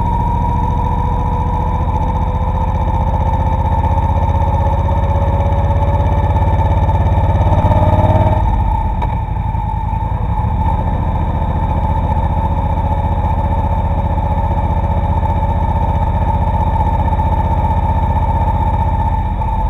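Motorcycle engine running under way, heard through the motorcycle dashcam's own microphone. The revs climb steadily for about eight seconds, then the throttle eases off and it runs quieter. A steady high whine sits alongside.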